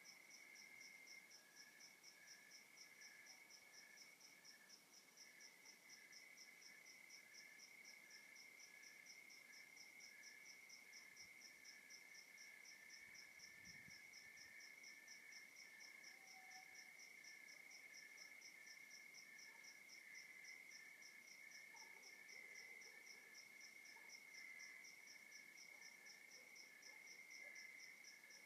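Faint night chorus of crickets: one chirps in a fast, even pulse while others keep up a steady trill beneath. A brief faint low rumble comes about halfway through.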